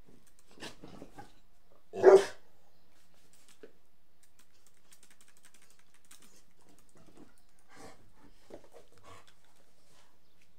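An American Staffordshire terrier gives one loud, short bark about two seconds in. A few much fainter short sounds come before and after it.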